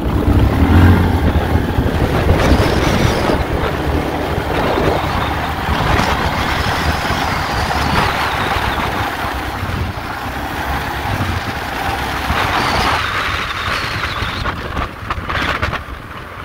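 ATV engine running while the quad is ridden, a steady mechanical noise with small shifts in level.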